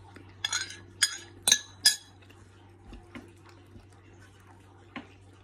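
Metal spoon clinking against a dish four times in quick succession, about half a second apart, each strike ringing briefly, as food is scooped; one lighter click near the end.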